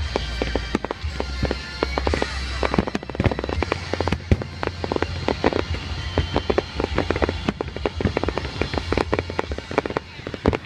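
Fireworks display going off: a dense run of overlapping bangs and crackles, several a second, over a steady low rumble.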